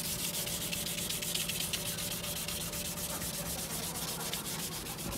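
Sandpaper wet sanding a plastic car headlight lens by hand, a steady scratchy rasp of quick, even back-and-forth strokes: the sanding is taking off the lens's yellowed, oxidised surface.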